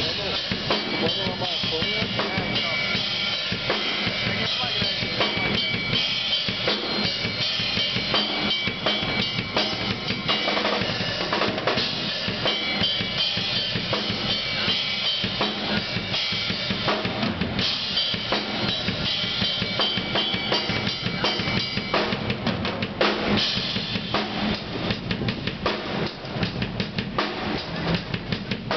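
Music with a drum kit playing a steady beat, bass drum and snare over a sustained bass line.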